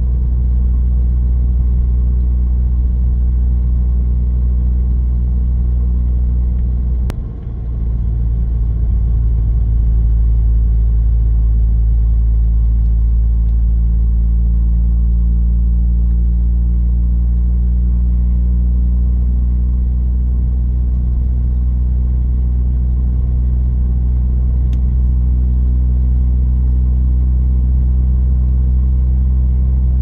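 Steady low drone and rumble of a running vehicle, holding an even pitch, with a brief dip about seven seconds in.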